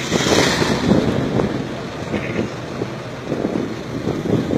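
Engine and road noise of a moving vehicle heard from on board, with wind buffeting the microphone.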